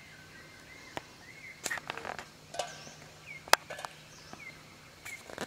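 Wild animal calls: short chirping notes repeating every second or so, with several sharp clicks, the loudest about three and a half seconds in, over a faint steady low hum.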